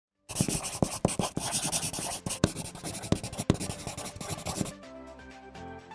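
Scratchy rubbing noise broken by sharp clicks, then music starts near the end.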